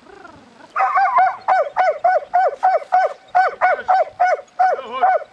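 Dog yelping and whining in rapid repeated high calls, about four a second, after a softer drawn-out whine at the start.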